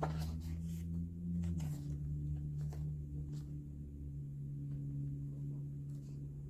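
A low steady hum on a held pitch that drops slightly to a second held pitch about two seconds in, with a few soft clicks of coloring-book pages being turned.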